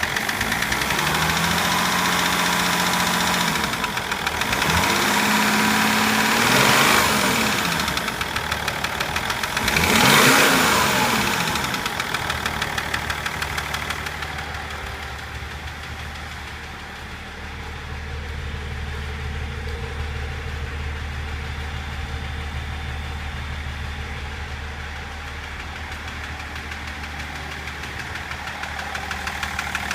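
BMW M57 straight-six diesel engine revved up and back down three times, then settling to a steady idle with an even knocking pulse. The knocking is the fault the owner reports, which began at about 240 km/h.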